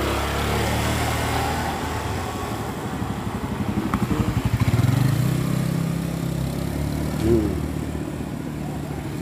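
Small motorcycles and scooters riding slowly past at close range, one after another, their engines running steadily. The nearest pass is loudest about five seconds in, then the sound eases off.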